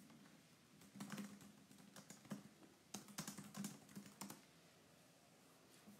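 Faint typing on a keyboard: short runs of quick key clicks about a second in and two seconds in, then a longer run of clicks about three seconds in.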